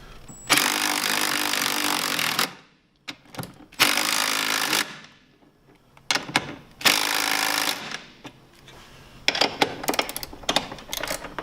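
Impact driver running the bumper's bolts and nuts down snug in three bursts, the longest about two seconds, followed near the end by a run of short metallic clicks from the fasteners and tools being handled.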